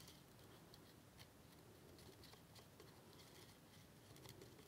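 Near silence: faint room tone with a few light ticks.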